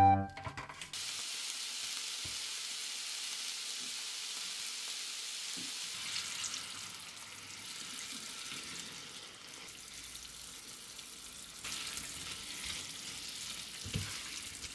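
Green bell pepper strips sizzling steadily in a nonstick frying pan, easing a little after about six seconds, with a light knock near the end.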